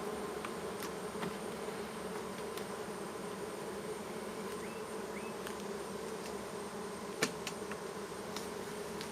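Honey bees buzzing steadily around an opened hive, a dense even hum. A single light tick sounds about seven seconds in.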